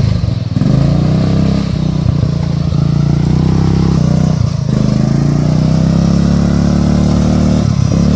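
Riding lawn mower engine revving under load as the mower pulls away, its pitch climbing, dropping briefly about four and a half seconds in, then climbing again before another brief drop near the end.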